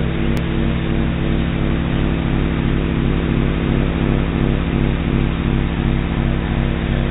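Steady droning soundtrack: several low sustained tones held under a constant hiss, unchanging throughout.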